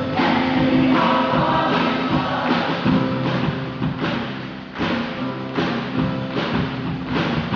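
Music with a large group of voices singing over a steady beat.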